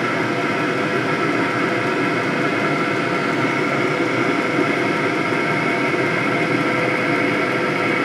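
Diesel heater running steadily: an even blower-and-burner noise with several steady tones in it, unchanging throughout.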